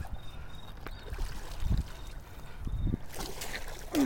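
Water splashing and sloshing as a large gar is hauled out at the bank, with a few dull knocks; the splashing grows louder about three seconds in.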